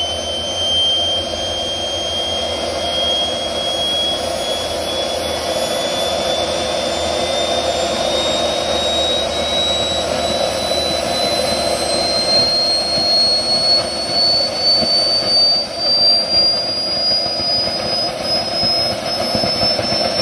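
Small microturbine jet engine spooling up: a high whine climbs steadily in pitch over a steady rushing noise as the engine speeds up during its start. Its combustor is lit, and the loudness wavers unevenly in the later seconds.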